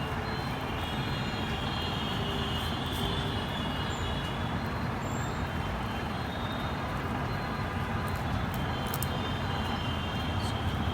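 Steady low rumble of road traffic, even throughout.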